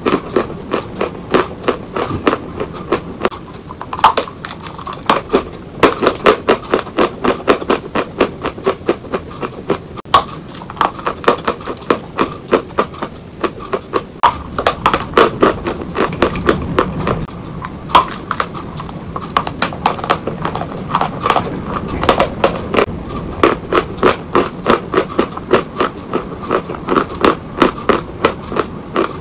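Close-up chewing of a mouthful of Oktavia chalk: a steady run of crunchy crackles, about three or four a second.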